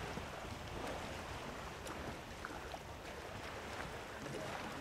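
Distant fireworks heard from across a lake: a few faint, scattered pops and crackles over a steady low rumble.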